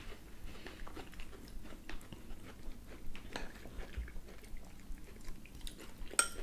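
Close-up chewing and biting of grilled beef steak, a soft run of irregular mouth clicks, along with light knife and fork contact on plates; one sharper click near the end.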